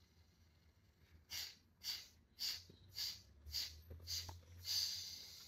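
A man's forceful snort-like exhalations through the left nostril, the right nostril held shut with his thumb: about seven sharp puffs roughly half a second apart, starting about a second in, the last one longer and trailing off. This is a yoga breathing exercise of vigorous one-nostril exhalations.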